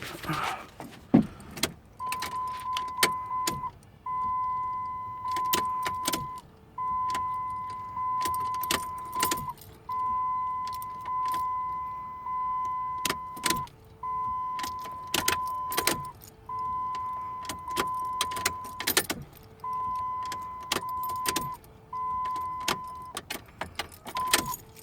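An electronic beep tone sounding in runs of one to two seconds with short breaks, over a scatter of sharp clicks and rattles.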